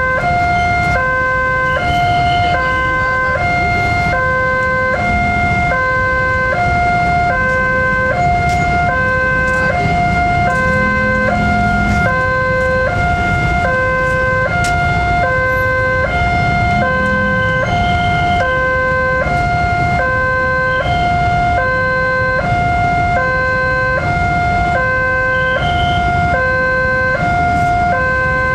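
Railway level-crossing electronic warning alarm sounding a steady two-tone signal, alternating between a lower and a higher tone about every 0.8 seconds, over the low rumble of waiting motorcycle traffic.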